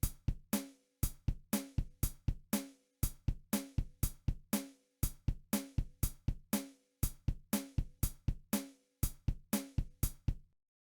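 A drum beat playing a steady rock pattern of kick and snare hits, repeating in bars of about two seconds with a short gap at the end of each. It stops about ten and a half seconds in.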